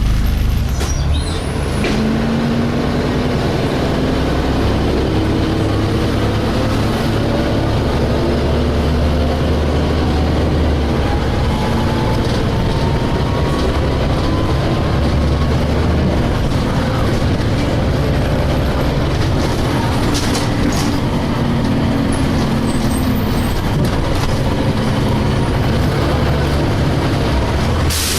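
The diesel engine of a DAF SB220 bus, heard from inside the cabin, drones under load, with a whine that slowly rises in pitch twice: the vacuum-cleaner-like 'hoovering' sound these buses are known for. A sharp knock comes near the end.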